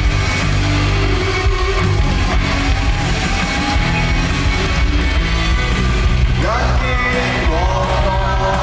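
Live band music played loud through an arena sound system, with a heavy, steady bass line. Voices singing into microphones come in about six and a half seconds in.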